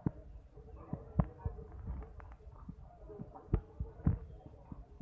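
Open-air vegetable market: a low murmur of distant voices with a faint steady hum, broken by four dull low thumps, the loudest about a second in and about three and a half seconds in.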